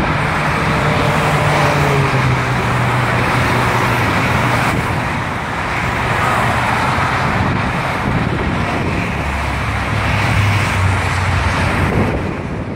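Steady freeway traffic noise: a constant rush of tyres on the road, with the low engine hum of passing vehicles swelling and falling away twice, once early and again near the end.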